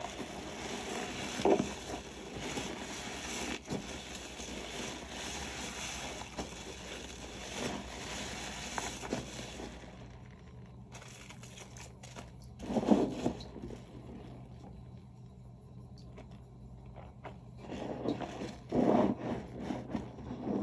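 Dish-soap-loaded sponge being squeezed and worked, its lather crackling and squishing: continuous for the first half, then a few separate squeezes.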